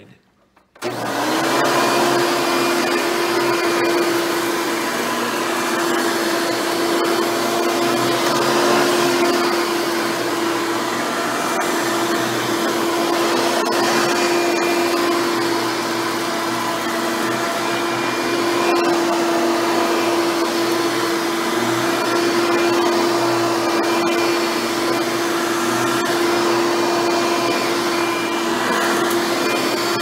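Hoover Turbopower 4000 upright vacuum switched on about a second in, its motor spinning up to a steady whine and running steadily as it vacuums a rug.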